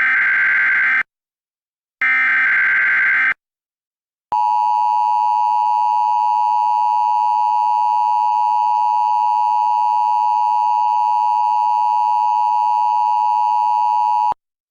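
Emergency Alert System signal: two short screeching digital data bursts of the header about a second apart, then the harsh two-tone attention signal held steady for about ten seconds and cut off abruptly near the end.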